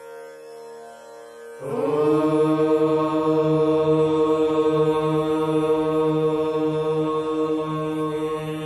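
Voices chanting in unison during a prayer, coming in about a second and a half in on one long note held steady, over a quieter instrumental drone.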